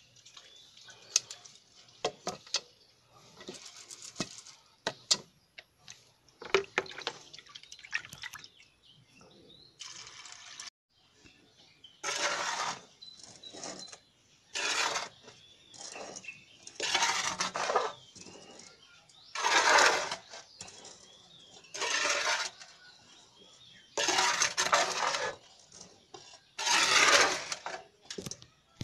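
Dry bean seeds clicking and rattling against a metal pot as a hand stirs them. After a break, a hand rubs and scrapes ash in a metal pot in gritty strokes about every two and a half seconds, louder than the earlier clicking.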